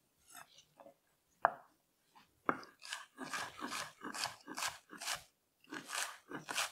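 Chef's knife slicing crisp snow peas on a wooden cutting board. A few light knocks come first, then from about two and a half seconds in a steady run of crunchy cutting strokes, about three a second.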